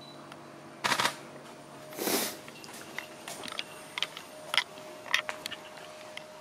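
Two loud rustling bumps, about one and two seconds in, then a scattered run of short, sharp clicks and ticks over a faint steady hum.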